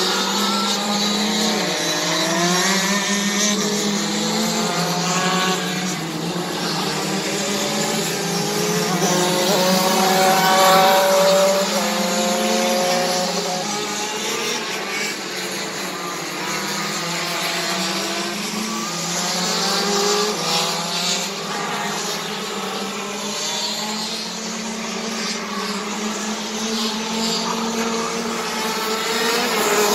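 Several racing kart engines running at once, their pitch rising and falling as the karts accelerate and brake around the circuit, loudest about ten seconds in.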